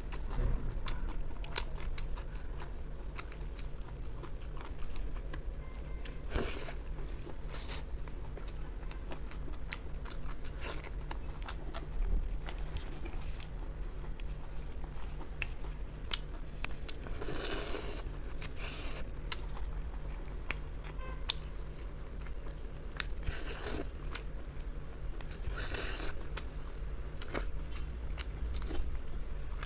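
Close-miked eating of braised ribs: chewing with many small wet clicks and smacks. A few longer tearing sounds come as meat is pulled off the bone, and a low steady hum lies underneath.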